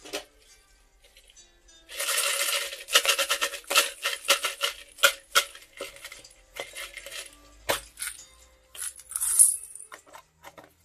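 Plastic sequin confetti rattling and clicking inside a small clear plastic tub as it is shaken and tipped out onto a bowl of foam beads and sequins, in quick irregular bursts, with a loud rattling shake about two seconds in and another near the end.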